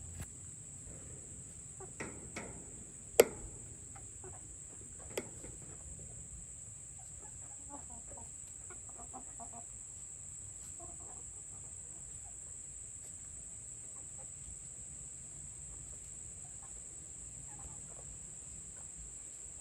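A flock of Black Australorp chickens clucking softly and sparsely while foraging. A few sharp clicks come in the first few seconds, the loudest about three seconds in, over a steady high whine.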